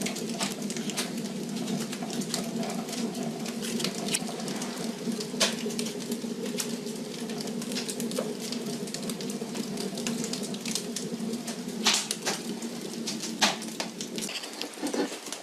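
Wood fire burning in the bread-oven chamber of a brick stove: a steady low hum of the draft with scattered crackles and pops from the burning wood, a few sharper pops standing out. The hum stops about 14 seconds in.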